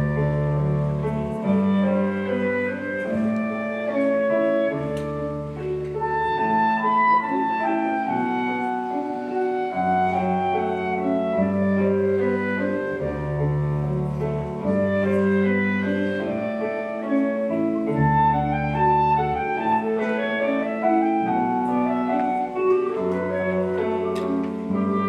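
Instrumental music: a held melody over chords and low bass notes that change about every second and a half.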